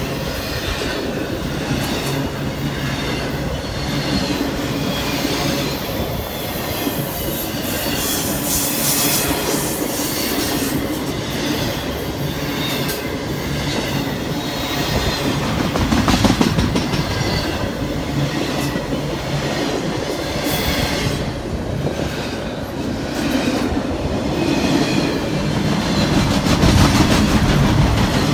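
Intermodal freight train rolling past, its steel wheels clattering over the rail joints in a steady rumble that swells a little about halfway through and again near the end.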